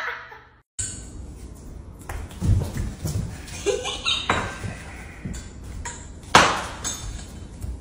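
Light taps and clinks of kitchen items being handled on a counter, with one loud, sharp knock about six seconds in.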